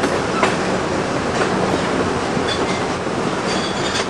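Passenger train cars rolling along the track, heard from an open window: a steady rumble and rush of wheels on rail with a few sharp clicks, and faint high-pitched squeals near the end.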